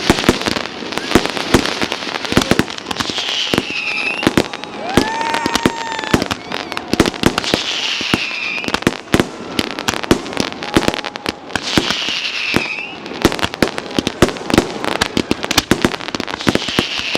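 Fireworks display: a dense, irregular run of bangs and crackles, with a high falling whistle about every four seconds.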